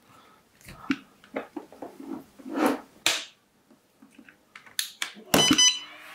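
Plastic clicks and rattles of LiPo packs and charging leads being handled. About five seconds in, a power plug snaps into an ISDT Q6 battery charger, which beeps as it powers up and starts its startup tones near the end.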